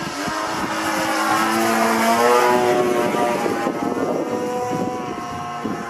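Radio-controlled Extra 260 model airplane's 26cc two-stroke gasoline engine and propeller running at high throttle in flight. The engine note rises in pitch and grows louder up to about two and a half seconds in, then drops to a lower pitch and eases off as the plane passes.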